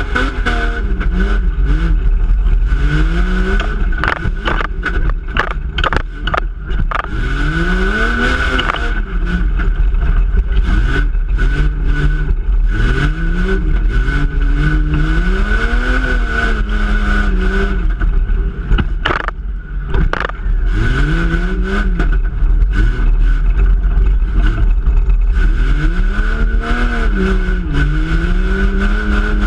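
A rough-truck competition vehicle's engine, heard from inside the stripped cab, revving up and dropping back again and again as it is driven over dirt mounds. Sharp knocks and rattles come from the body and cage, and a steady high whine runs underneath.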